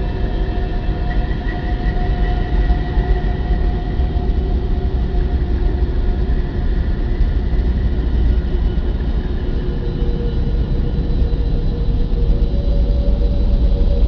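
Deep, steady rumbling drone with a few faint sustained tones that drift slightly in pitch above it, presented as a NASA recording of Earth from orbit.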